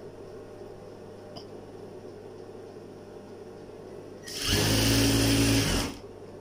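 Electric sewing machine stitching a short run of about a second and a half, starting about four seconds in and stopping abruptly, over a steady low hum.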